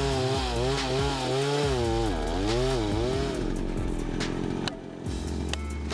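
Two-stroke chainsaw cutting into the base of a tree trunk, its engine pitch wavering and dipping under load for the first three seconds, then a rougher, steadier sound with a few sharp ticks.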